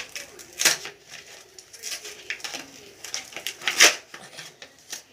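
Thin plastic packaging crinkling and crackling as it is handled and opened by hand, with two louder crackles, one under a second in and one about four seconds in.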